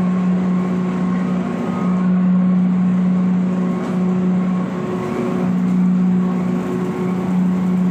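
Coal grinding machine running with a steady, loud hum that briefly wavers a few times.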